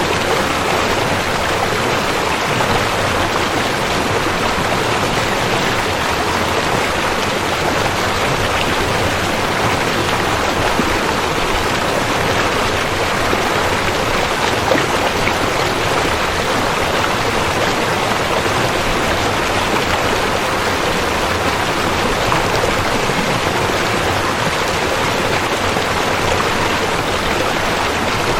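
River water rushing over rocks in a steady, even flow.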